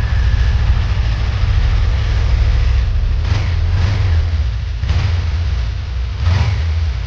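2018 Suzuki GSX250R's 248 cc parallel-twin engine running through its stock exhaust: a steady idle with a few short throttle blips in the second half. The owner calls the stock exhaust super quiet and vacuum sounding.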